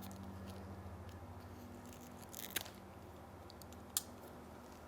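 Low steady hum with two sharp clicks of gear being handled, one about two and a half seconds in and a louder one about four seconds in.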